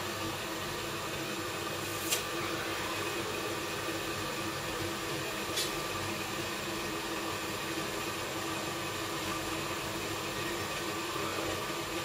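Steady fan-like rushing of a small glassblowing hot shop's furnace and glory-hole blowers running, with two faint clicks about two and five and a half seconds in.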